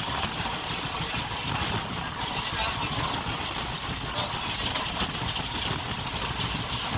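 Steady onboard noise of an Indian Railways passenger coach: a low rumble with a hiss above it, with no distinct events.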